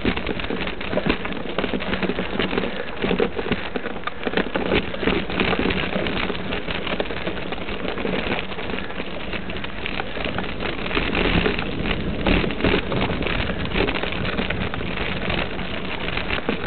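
Mountain bike climbing a gravel dirt trail: a steady gritty crackle of tyres crunching over loose stones, mixed with rattle and rubbing noise on the camera microphone.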